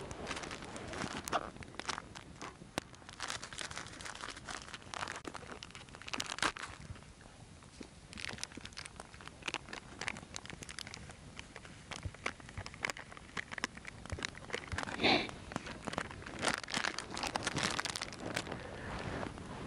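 Irregular crunching, rustling and crackling, made up of many short clicks and brief scrapes, with a louder crunch about fifteen seconds in.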